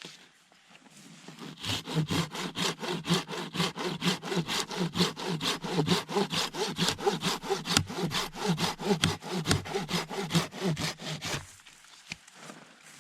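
Hand saw cutting through a wooden stick from a fallen tree, in fast, even back-and-forth strokes, about four or five a second. The sawing starts about a second and a half in and stops near the end.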